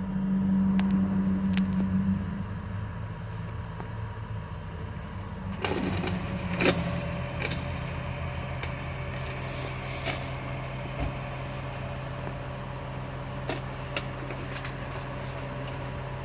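A vehicle engine running steadily with a low hum, louder for the first two seconds, with a few sharp clicks and knocks about six seconds in.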